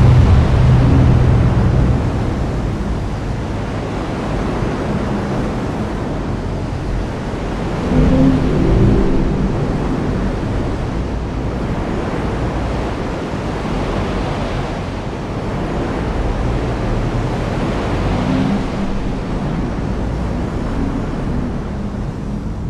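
Heavy rain falling steadily, with low rumbles of thunder at the start, about eight seconds in, and again around eighteen seconds.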